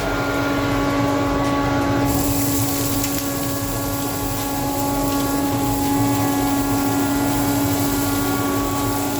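CORMAK DC200 dust extractor running, its motor and fan giving a steady hum with one strong constant tone. A higher rush of air rises about two seconds in.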